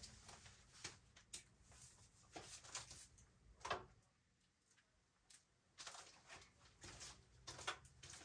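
Near silence with a few faint, irregular clicks and taps, the clearest a little before four seconds in.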